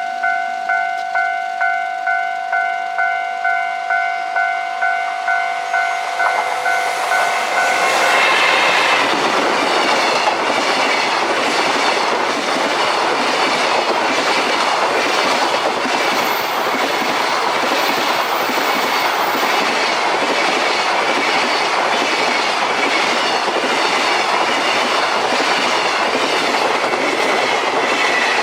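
A level-crossing warning bell rings about twice a second. From about eight seconds in, a JR Freight EF210 electric locomotive and its long train of container wagons pass over the crossing, the wheels clattering steadily over the rail joints.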